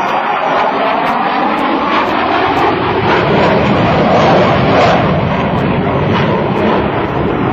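Jet noise of an F-15C Eagle's twin Pratt & Whitney F100 turbofans as it pulls up into a climb. It is a loud, continuous rush that swells a little about halfway through.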